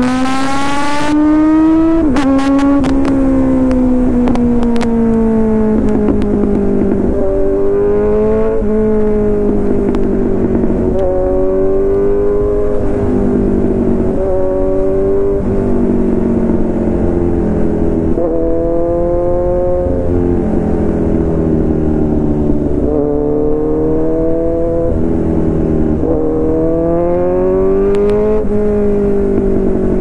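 Kawasaki Z900's inline-four with an Arrow full-system exhaust under way, rising in pitch under throttle and dropping back again a dozen or so times as the rider accelerates and shifts or rolls off. There is a short burst of hiss at the very start and a scatter of clicks a couple of seconds in.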